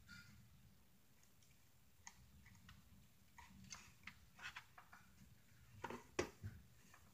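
Near-silent room tone with a few faint, sharp clicks and taps scattered through it, the sharpest a pair about six seconds in.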